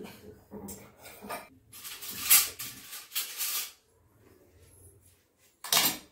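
Stainless-steel plate, bowl and spoon being handled and set down on a stone counter: a few short scraping, clattering sounds, the sharpest near the end.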